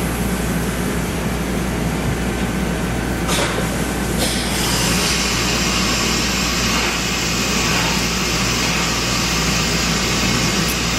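CNC machining centre carrying out an automatic tool change to tool 18, over a steady machine hum. Two short knocks come a little after three and four seconds in, and then a steady hiss joins the hum.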